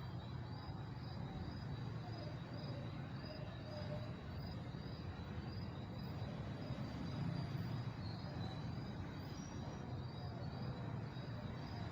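Crickets chirping in a steady rhythm, about two high chirps a second with a thin continuous trill beneath, over a low steady rumble.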